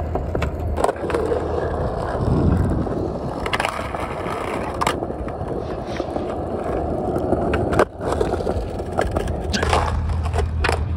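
Skateboard rolling on rough concrete with a steady wheel roar, punctuated by several sharp clacks of the board hitting the ground, mostly near the end.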